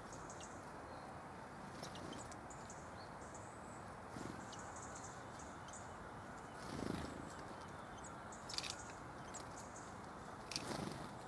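Tits at a bird feeder: faint, short high-pitched calls scattered throughout over a steady hiss, with a few soft knocks of birds pecking and landing, the loudest about two-thirds of the way in and near the end.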